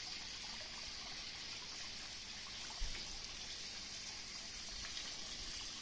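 Water spilling from an Aquascape spillway into a garden pond: a steady splashing trickle. A brief low bump about halfway through.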